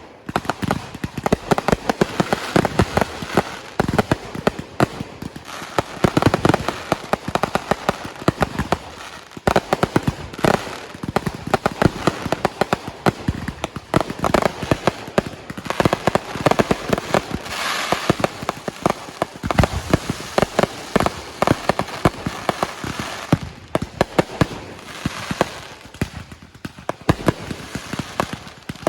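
Fireworks going off in a dense, continuous barrage: rapid cracks and bangs, many per second, with no pause between them.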